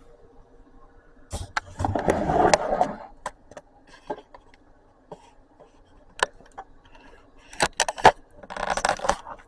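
Handling noises from finishing a frosted cake: scraping and rustling twice, with scattered sharp clicks and taps in between.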